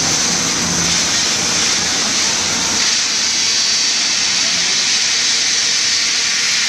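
Steady, loud hissing rush of a concrete pour: wet concrete spraying from a pump line onto a steel rebar mat.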